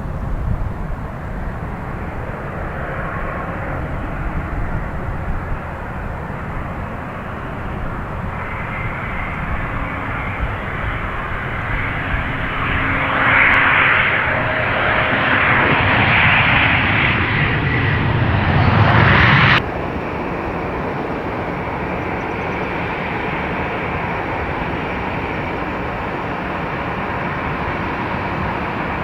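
Jet airliner engines roaring as a plane passes, swelling to their loudest about two-thirds of the way through, then cut off abruptly and replaced by a steadier, quieter jet roar.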